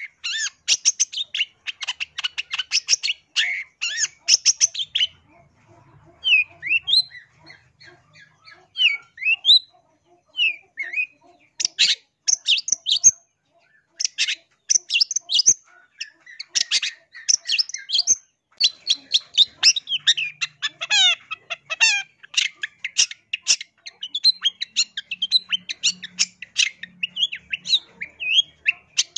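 Long-tailed shrike (cendet) singing: rapid, harsh chattering phrases, broken a few seconds in by a quieter spell of short, sliding whistled notes, then dense chattering again to the end.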